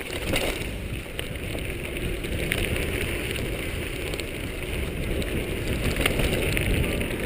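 Mountain bike riding over a rough trail: a steady low rumble of wind buffeting the microphone and tyres on the ground, with scattered rattling clicks.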